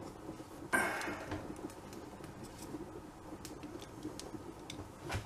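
Small tools and metal parts being handled on a worktop: a short scrape a little under a second in, then scattered faint clicks as a caliper is set against a brass regulator part.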